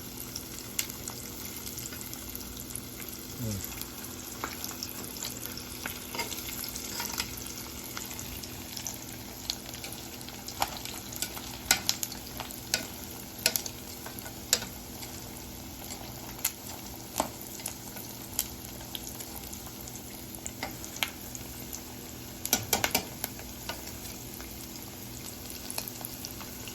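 Chicken refrying in hot oil to crisp it: a steady sizzle with frequent sharp pops and crackles, and a brief burst of crackling near the end.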